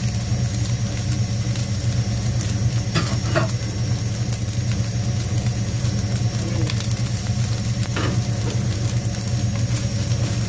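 Rice and egg sizzling in a nonstick pan under a loud, steady low mechanical hum. There are two brief knocks, about three and eight seconds in.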